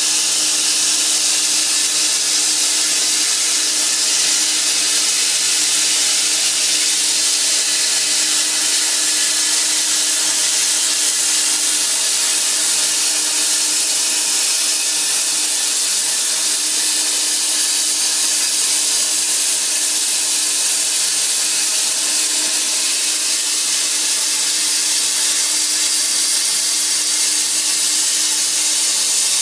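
Hypertherm Powermax 1000 plasma cutter's arc cutting through half-inch steel plate: a loud, steady hiss of the plasma jet, with a steady low hum beneath it.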